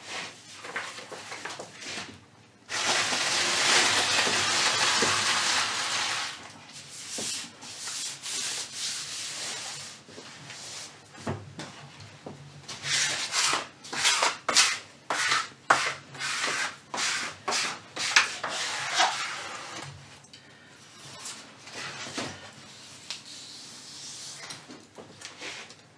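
Hands rubbing and sliding large stencil sheets across a glass worktable. A long continuous rub runs from about three seconds in, then comes a run of many short rubbing and scraping strokes, and it eases off near the end.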